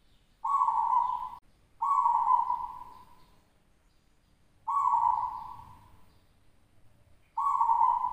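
Local perkutut (zebra dove) cooing: four loud, clear coos, each about a second long and trailing off, spaced a second or two apart.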